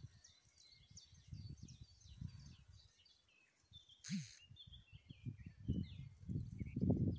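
Songbirds chirping and whistling in short high phrases throughout, over low irregular gusts of wind buffeting the microphone that grow stronger near the end. A single sharp click about four seconds in.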